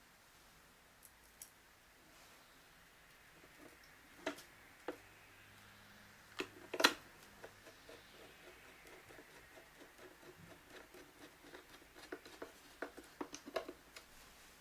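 Scattered light clicks and taps as a fixing screw for a digital door lock is fitted and driven in with a screwdriver. The taps come a few at a time, with a quicker run of small ticks near the end.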